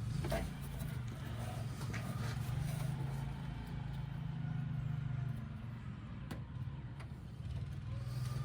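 Steady low hum of a vehicle engine idling, swelling and easing slightly, with two sharp light clicks about six and seven seconds in.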